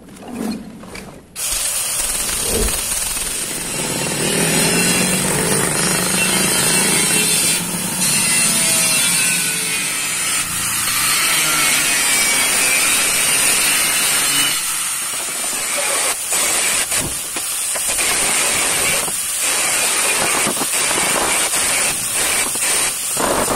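Angle grinder grinding the steel of a door frame, starting about a second and a half in, with repeated short breaks and restarts in the later part.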